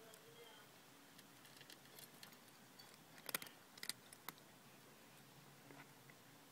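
Near silence with a few sharp clicks from a CD V-700 Geiger counter, clustered about three to four seconds in: a background-level count with no significant radiation on the cat.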